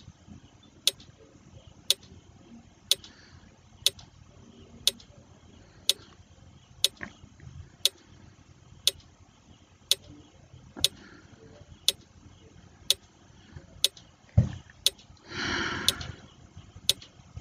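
Countdown-timer clock ticking, one tick a second, while a 20-second answer timer runs. Near the end a sharp thump and then a short noise break in.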